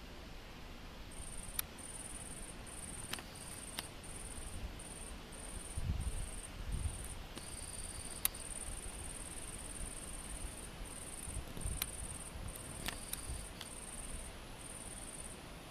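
An insect stridulating in a run of short, high, buzzy chirps, about one to two a second, starting about a second in and stopping shortly before the end. A few sharp clicks and a couple of low thumps near the middle.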